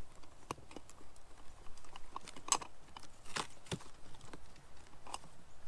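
A scattered series of about seven sharp clicks and knocks, with the two loudest around the middle, one of them carrying a low thump.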